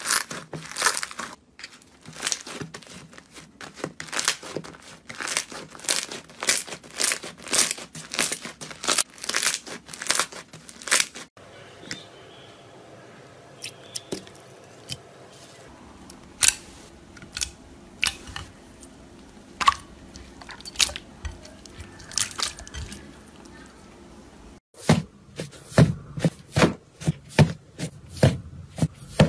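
Slime being squeezed and pressed by hand, making rapid crackling and popping clicks. After a cut a little over ten seconds in, the pops come more sparsely. Near the end they turn deeper and squishier.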